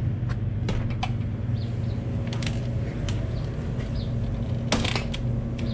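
Metal-framed glass storefront door being pushed open, with light clicks of its hardware and a short, sharp rattle about five seconds in, over a steady low hum.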